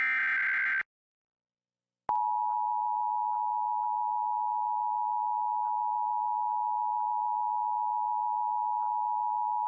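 An Emergency Alert System data burst, a short buzzy digital screech lasting under a second. After about a second of silence the EAS two-tone attention signal starts: a steady, loud, unchanging dual tone.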